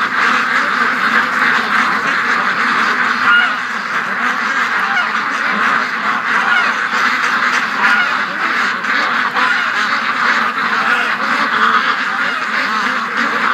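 A large flock of domestic ducks, mostly white Pekins, quacking continuously in a dense, steady chorus of many overlapping calls.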